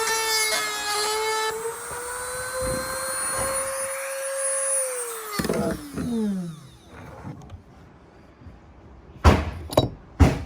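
Dremel rotary tool running at speed with a steady high whine, grinding out the wooden edge of a door's lock hole to enlarge it. About five and a half seconds in it is switched off and winds down, its pitch falling. Two sharp knocks near the end.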